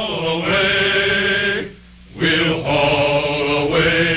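Wordless male chorus singing long held notes. The first phrase breaks off about two seconds in, and a second phrase follows shortly after.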